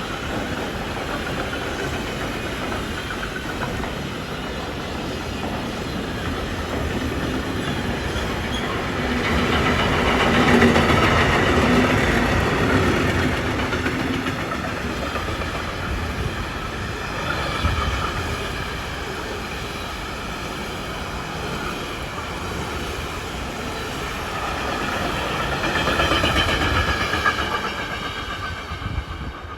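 A freight train passing, hauled by an ÖBB Taurus electric locomotive: a steady rumble and clatter of wagons on the rails, with high whining tones that swell loudest about a third of the way in and again near the end.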